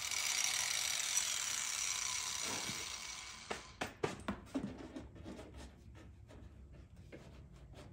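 A steady hiss for about three and a half seconds, then a run of sharp clicks and knocks as the snorkel's intake pipe pieces are handled and test-fitted together.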